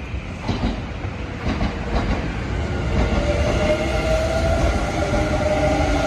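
Kintetsu Series 50000 Shimakaze electric express train pulling out past the platform. Its wheels clack over rail joints in the first two seconds, then a rising whine builds as it gathers speed.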